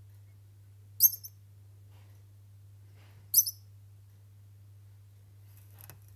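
A degu giving two short, high-pitched squeaks, each a quick cluster of notes, about two and a half seconds apart, over a faint low hum. The squeaks are the calls that the owner calls sad degu sounds.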